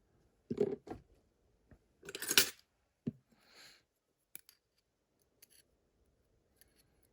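Small metal clicks and a brief scrape as a heavy spring is worked out of a pin-tumbler lock's pin chamber. There are a handful of separate light clicks, with the longest scrape about two seconds in.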